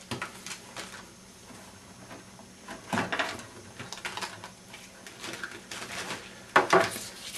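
Flat IDE ribbon cables being pulled off their motherboard connectors and drawn out of a metal computer case: scattered rustles and plastic clicks, with a pair of sharper knocks near the end.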